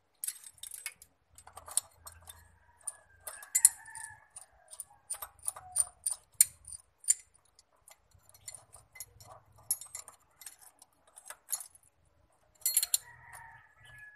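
Steel gear puller clinking and clicking irregularly as its jaws and arms are fitted by hand around a Toyota L engine's crankshaft timing gear. A long drawn-out call sounds faintly in the background twice.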